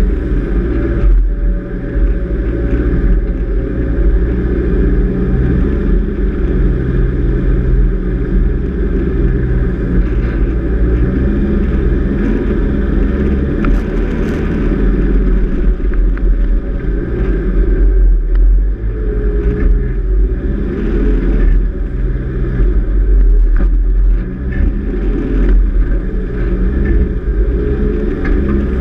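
Four-wheel-drive vehicle driving along soft beach sand, its engine and tyres making a steady low drone.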